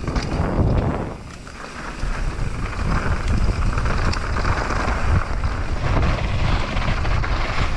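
Wind rushing over an action camera's microphone and a Propain Tyee mountain bike's tyres rolling fast over dirt. It dips briefly about a second in, then runs strong again.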